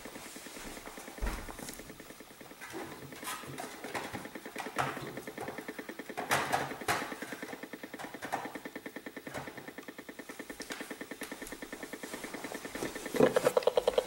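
Acoustimeter RF meter's speaker sounding the Wi-Fi router's signal as a fast, even pulsing buzz, which grows louder about a second before the end as the shielding net comes off the router and the radiation reading jumps back up. A few handling knocks and rustles are heard in the first half.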